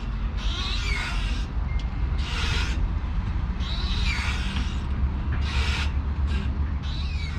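A playground swing rasping and squeaking at its pivots as it swings back and forth, one grating squeak about every second and a half, over a low steady rumble.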